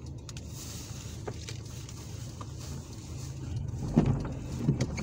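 Steady engine and road noise heard from inside a moving car's cabin, with tyre hiss from the wet road. Two short, louder sounds stand out about four seconds in and again just before the end.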